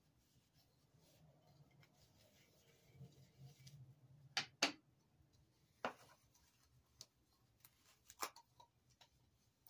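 Soft rubbing of a wipe on a small trinket box, then a handful of light clicks and taps as the box and its lid are handled and set against each other and the desk, the loudest two close together about halfway through.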